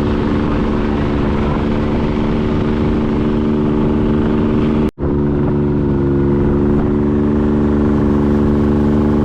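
An engine running steadily. It is cut off sharply about five seconds in and comes back at a slightly different pitch.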